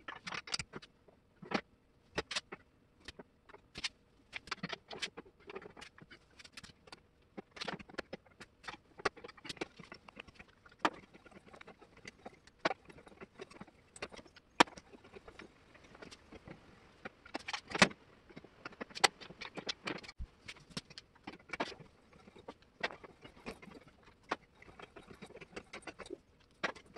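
Scattered light metallic clicks, clinks and taps at irregular intervals, from hand tools and a steel car wheel hub being handled and set up in a bench press on a metal workbench.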